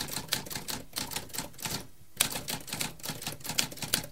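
Typewriter keys being struck in quick, irregular succession, with a brief pause about two seconds in.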